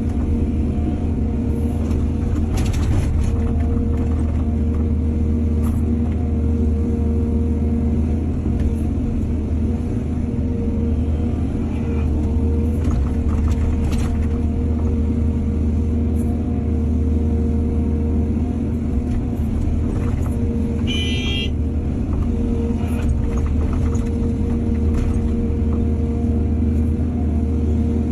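Excavator's diesel engine running steadily under work, a constant low drone with a steady whine over it. Occasional knocks and clatter break in, and there is a brief high-pitched squeal about three quarters of the way through.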